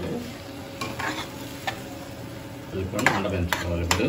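Flat spatula stirring and scraping a pan of frying capsicum, onion and sauce, with a light sizzle underneath. The spatula knocks against the pan a few times, and the scraping and knocks come thickest about three seconds in.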